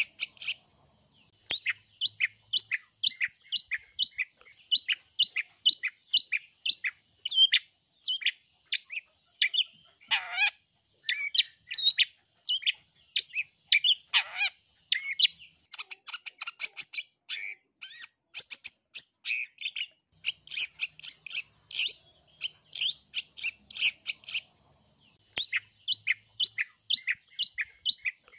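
Long-tailed shrike (cendet) singing: fast runs of short, sharp chirping notes, about four a second. In the middle these give way to varied notes, two harsh down-sweeping rasps and bursts of rapid chatter. This is the loud, persistent 'gacor' song used to provoke other cendets into answering.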